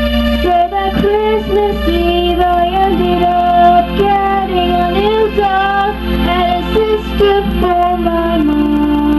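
A girl singing an improvised song into a corded microphone, over steady held backing notes.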